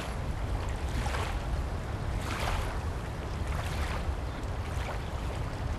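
Outdoor shoreline ambience: wind rumbling on the microphone over a steady hiss, with a few brief soft rustles.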